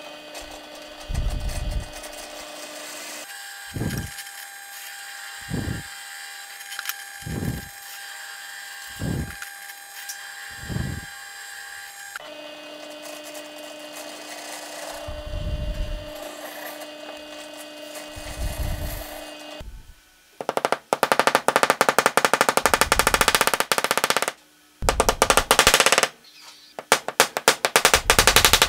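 Benchtop drill press running steadily while its bit bores into a pine board in about eight short plunges, the last two longer. About twenty seconds in it gives way to three runs of rapid hammer taps, setting ball bearings into the drilled holes.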